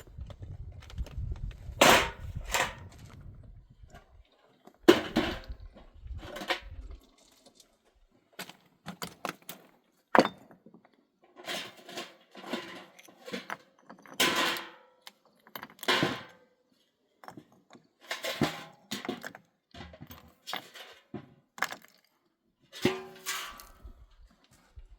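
A series of irregular sharp knocks and cracks, some singly and some in quick clusters, spread out with short pauses between them.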